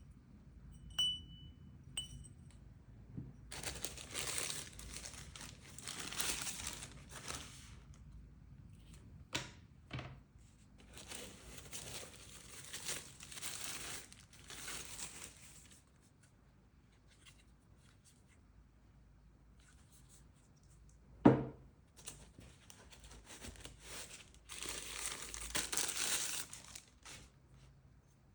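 Packaging being torn and crinkled by hand in three long stretches, with a few light clicks and one sharp knock about two-thirds of the way through.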